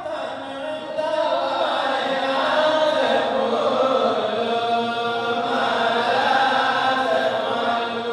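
Men's voices chanting a melodic religious recitation with long held notes, growing louder about a second in.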